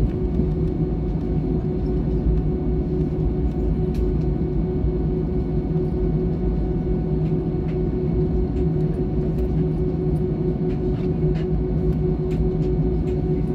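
Cabin noise of an Airbus A319 taxiing: a steady low rumble and hum from its CFM56 engines at taxi power, holding a constant tone, with a few faint clicks and rattles.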